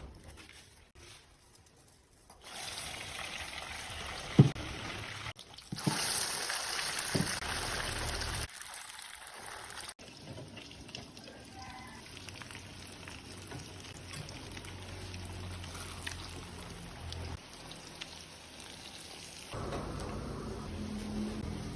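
Chicken sempol skewers frying in hot oil: an even sizzling hiss with a few sharp knocks, loudest in the first several seconds, then a quieter steady sizzle.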